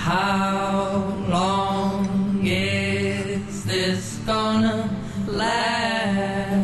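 Background music: a voice singing several long phrases over a steady low drone.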